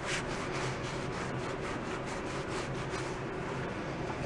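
Cloth rag rubbing over a glued, clamped wooden drum shell, wiping away glue: soft, steady rubbing over a low hum.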